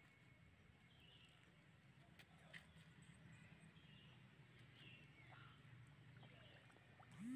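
Near silence: faint outdoor background with a steady low hum and a few faint, short high chirps scattered through it.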